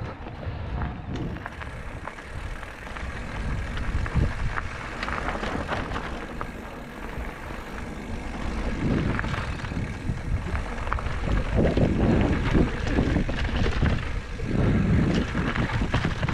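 Mountain bike riding along a dirt trail: tyres rolling over the ground with frequent clicks and rattles from the bike over rough spots, and wind on the microphone. It gets louder in a few rough stretches, most of all in the last few seconds.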